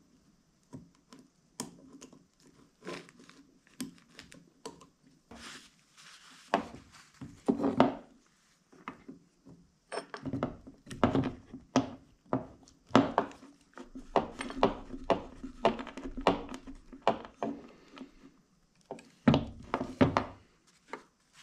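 Steel parts of a Volkswagen Beetle pedal cluster (pedals, cross shaft, small clips) clicking and knocking as they are handled and fitted together on a workbench. The knocks are scattered at first and come thick and fast from about ten seconds in.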